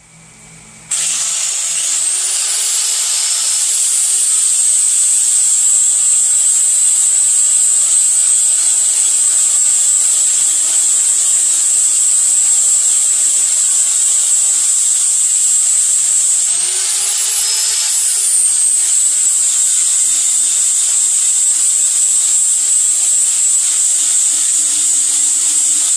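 Angle grinder running under load, grinding down a cast timing cover to clear a gear drive. Its steady high whine starts about a second in, and its pitch rises and drops back once near the middle as the load eases and returns.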